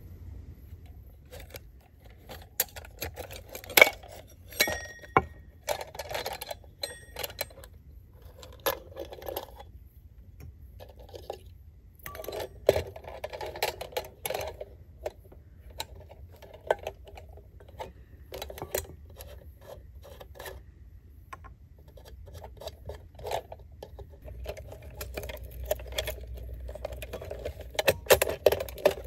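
Hurricane lantern's metal and glass parts being handled and taken apart on a wooden tabletop: irregular clicks, clinks and scrapes, with a couple of brief ringing metallic clinks about five seconds in.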